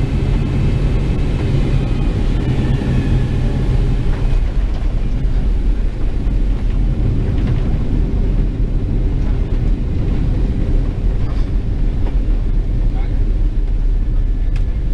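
Boeing 767 cabin noise while rolling out after landing: a steady low rumble of the engines and wheels on the runway. A higher engine whine fades away about four seconds in as the jet slows.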